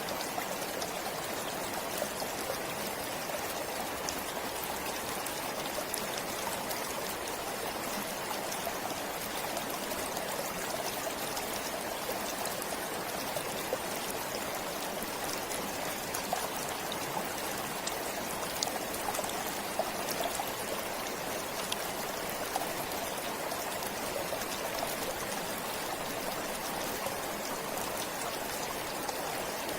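A stream flowing steadily: an even rush of running water with fine splashing ticks throughout.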